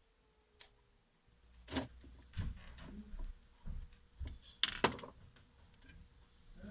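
A series of separate knocks and clacks, about six, as small hard objects are handled and set down on a workbench; the loudest two come close together near five seconds in.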